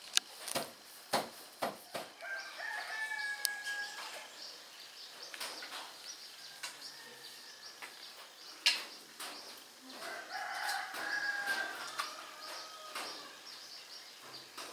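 A rooster crows twice, once a couple of seconds in and again after about ten seconds. Sharp wooden clacks sound through it as the parts of an Iban backstrap loom are worked by hand, the loudest a little past the middle.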